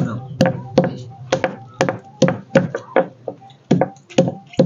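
A hand-held stone muller (batta) knocks down onto a flat stone grinding slab (sil) in quick, even strikes, about three to four a second, pounding turmeric into a paste.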